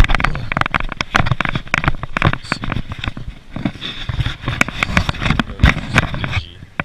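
A flock of water birds taking off from a lake and flying low over it: dense, irregular flapping and crackling of many wings and splashes, dying away shortly before the end.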